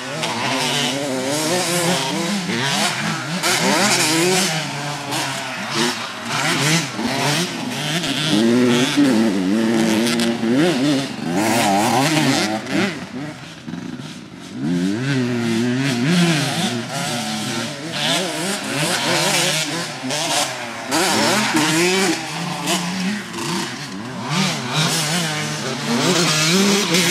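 Motocross dirt bike engine revving up and falling back again and again as it rides the track. It eases off about halfway through and then picks up again.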